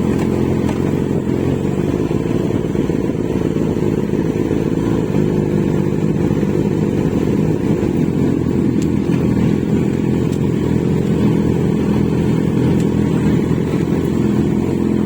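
Kawasaki Z900 inline-four engine and exhaust running at fairly steady revs, with slight rises and falls in pitch.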